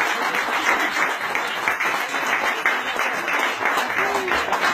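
A roomful of people applauding at the end of a speech, many hands clapping steadily at once, with a few voices faintly underneath.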